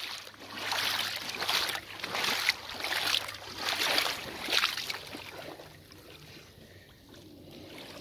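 Footsteps wading through shallow water, each step a sloshing splash, about one step every three-quarters of a second, growing fainter after about five seconds.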